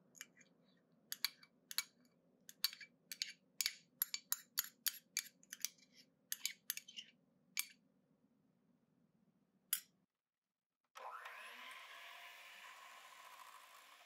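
A spoon clicking and tapping against glass many times over the first eight seconds as vanilla bean paste is scooped and added to the batter. About eleven seconds in, an electric hand mixer starts and runs steadily, its beaters whipping the egg batter in a glass bowl.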